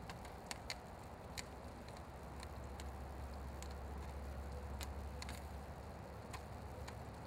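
Popcorn kernels starting to pop in a thin aluminium pan: about ten sharp pops scattered irregularly, with a low rumble swelling in the middle.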